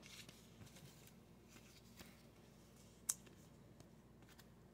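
Near silence: faint handling of a trading card in a plastic penny sleeve, with one short sharp click about three seconds in.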